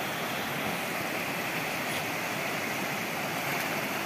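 Shallow rocky stream rushing over a small cascade: a steady, even rush of water.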